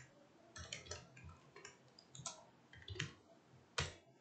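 Computer keyboard typing: a faint, irregular run of keystroke clicks.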